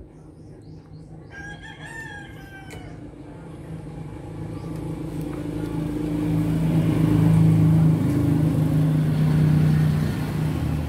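A rooster crows once, about a second in. Then a low engine drone builds up, is loudest in the second half and eases slightly near the end.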